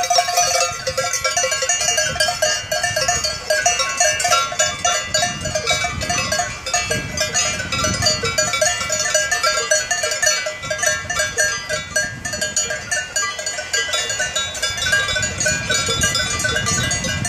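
Many cowbells on a walking herd of cattle clanging continuously and irregularly, with overlapping ringing tones, over a low rumble.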